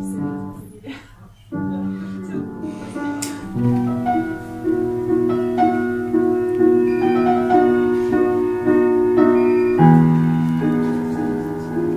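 Instrumental keyboard music: a melody over held chords. It fades briefly just after the start and comes back in about a second and a half in.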